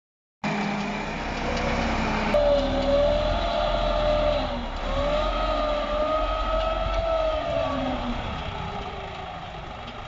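Massey Ferguson 375 tractor's four-cylinder diesel engine working under load as it pulls a five-tine chisel plough through dry, hard ground, its note rising and falling slightly. The sound grows fainter over the last few seconds as the tractor moves away.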